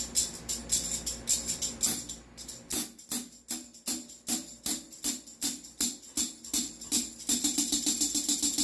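Steel tambourine jingles mounted on a drumstick jangling as the stick plays a quick run of strokes, several a second, each stroke setting off a shimmer of jingle hits that rings on briefly.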